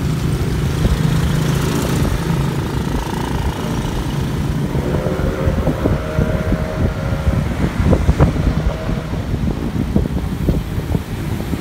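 Motorcycle engine running at a steady pace, with heavy wind rumble on the microphone while moving along the road. A higher steady tone joins for a couple of seconds about five seconds in, and there are a few sharp knocks near eight seconds.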